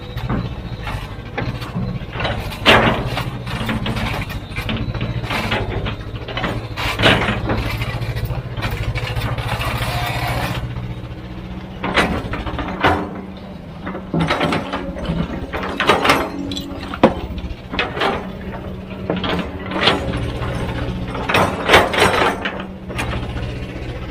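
Heavy diesel machinery engine running steadily under load, with a dozen or so irregular metallic clanks and knocks from the machine working.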